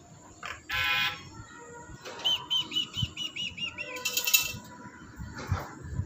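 Black-capped lory calling: a loud harsh squawk about a second in and another about four seconds in, with a quick run of about ten short chirps between them and a shorter call near the end.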